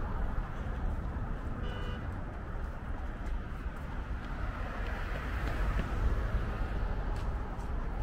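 Steady road traffic, a continuous low rumble of passing cars that swells slightly about five to six seconds in, with a brief high squeak about two seconds in.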